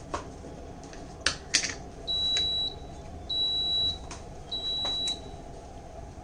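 Electric pressure cooker's control panel beeping: three steady, high-pitched beeps about a second apart, once the sauté mode and timer have been set. Two sharp clicks come just before the beeps.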